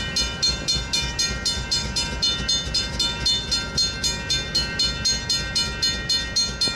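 Railroad grade-crossing bell ringing steadily at about four strokes a second, while the crossing is active, over the low rumble of the stopped diesel locomotive idling.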